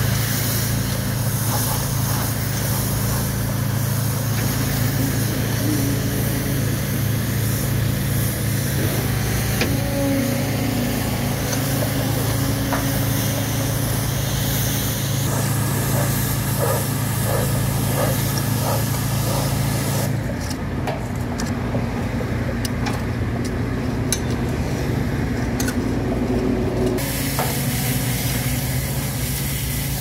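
Pressure washer running: a steady engine drone under the hiss of a high-pressure water spray. The spray hiss drops out for several seconds about two-thirds through, then comes back.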